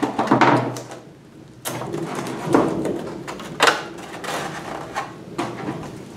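Adhesive tape being pulled off the roll and handled, in several short ripping crackles a second or so apart.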